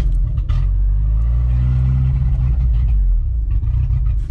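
Dacia 1310's four-cylinder petrol engine pulling under load, heard from inside the cabin over a rough track, running on paint thinner poured into the tank in place of petrol. The engine note climbs through the middle and drops back about three seconds in.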